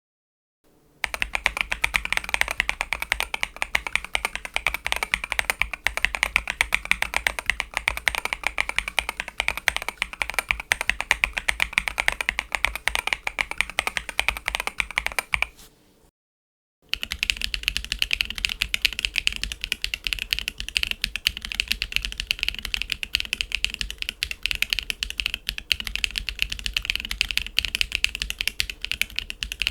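Mechanical keyboard fitted with MMD Princess Tactile V2 tactile switches being typed on quickly, giving a dense run of clacky keystrokes. There is a short silent break about halfway, then a second typing run with a brighter, thinner sound, as on a different keyboard.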